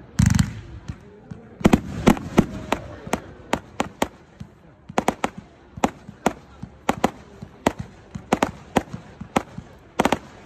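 Firework cake firing from the ground: a heavy bang just after the start, then a long run of sharp cracks, about three a second, as it shoots up coloured stars.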